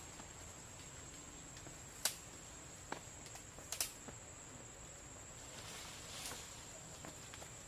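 Faint outdoor ambience: a steady high-pitched insect drone, with a few sharp clicks, the loudest about two seconds in.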